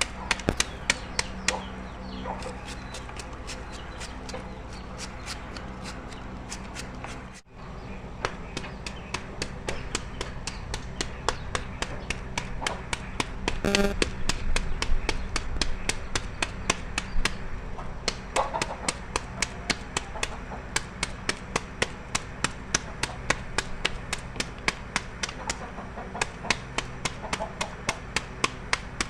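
A knife chopping steadily on a cutting board, about two to three strokes a second, over a steady low hum.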